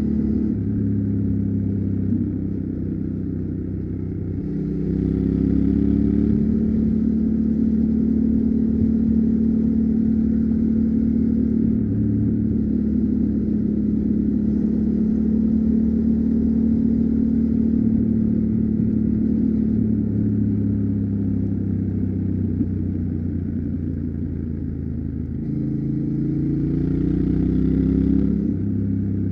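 Yamaha Ténéré 700's parallel-twin engine running on the move. It picks up speed about five seconds in, holds a steady pitch, eases off after about twenty seconds, then rises again before dropping near the end.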